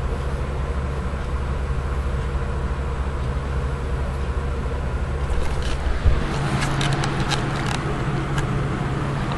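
A steady low hum, then a knock about six seconds in, followed by a few seconds of clicks and rustling as the handheld camcorder is handled and moved.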